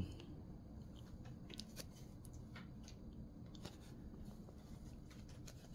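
Faint, scattered light rustles and small clicks of fingers handling skeins of embroidery floss on a floss organizer card, over a low steady hum.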